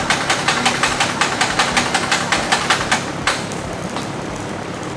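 Cessna 310's piston aircraft engine running, its exhaust beating in an even rapid pulse of about seven knocks a second, easing briefly past the middle before picking back up.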